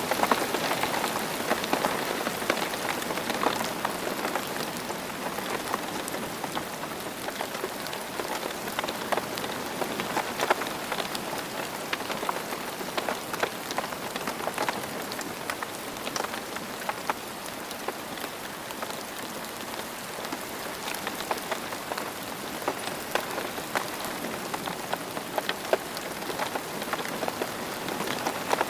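Steady rain falling on a surface, a continuous patter with many small irregular drop ticks.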